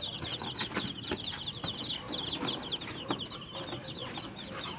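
A brood of Sasso chicks peeping without pause, many short high chirps overlapping. Paper rustles as a sheet is handled among them.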